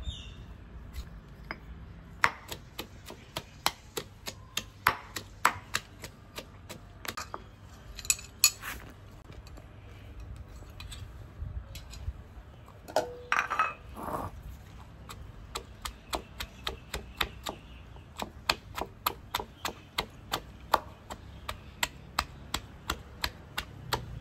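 Stone pestle pounding ginger, garlic and chilies in a stone mortar, a steady run of dull thuds about two to three a second. The strokes thin out briefly past the middle, where there is a short ringing clink.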